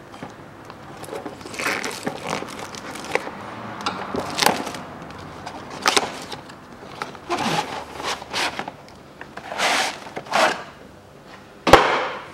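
A new panel air filter being taken out of its cardboard box: irregular rustling, scraping and crinkling of the packaging, with a sharp knock near the end, the loudest sound.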